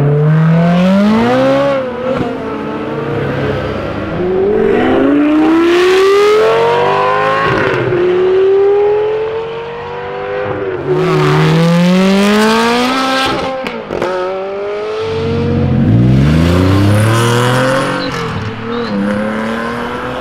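Sports-car engines accelerating hard away one after another, each revving up through the gears with the pitch climbing and dropping back at every upshift.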